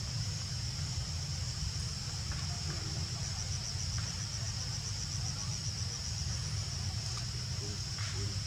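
Insects trilling in one steady high-pitched tone, pulsing evenly, over a continuous low rumble.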